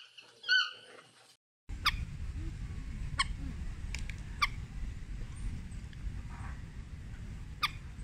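A yellow-throated toucan gives one yelping call, ending about a second in. After a brief gap, a steady low outdoor rumble follows, with a few very short, sharp chips scattered through it.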